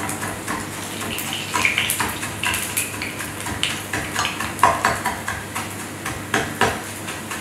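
Irregular clinks and scrapes of cooking utensils: a metal fork working in a frying pan and a spoon stirring in a mixing bowl.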